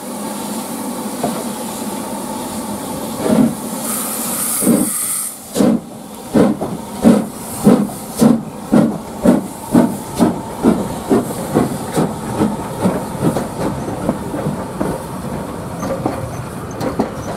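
Steam locomotive hissing, then pulling away: a short burst of louder steam hiss, then exhaust chuffs that start slow and quicken to about two a second, with steam hissing from the cylinder drain cocks.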